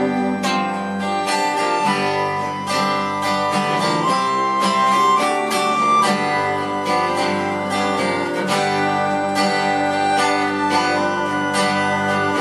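Instrumental break of a live acoustic folk song: an acoustic guitar strumming a steady rhythm over an upright double bass, with a melodica holding long notes above.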